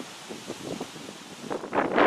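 Wind gusting over the camera microphone: a rough, uneven rustling buffet that grows loudest near the end and then drops off sharply.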